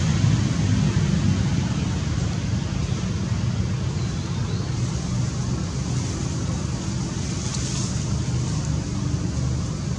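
Steady low rumbling noise with a fainter hiss above it, with no distinct calls or knocks.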